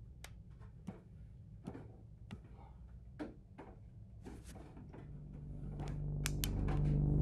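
Slow footsteps going down stairs: scattered light knocks and clicks at uneven intervals over a low hum. From about five seconds in, a deep drone swells up and grows louder.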